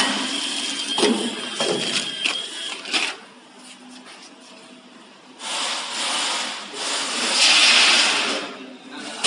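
YX-PF70 vertical granule bagging machine working: clicks and clatter for the first three seconds, then a quieter spell, then a loud rushing noise for the last few seconds.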